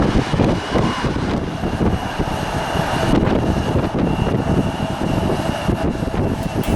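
Wind buffeting the camera microphone in gusts, making a heavy, choppy rumble. A faint thin high whine fades in and out behind it.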